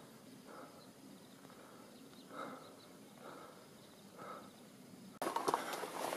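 Footsteps of a hiker walking up a rocky dirt trail: soft steps about once a second, then louder crunching and scraping on grit and stone from about five seconds in.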